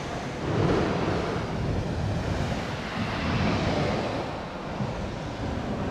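Sea surf washing against the shore, with wind buffeting the microphone; the noise swells and ebbs.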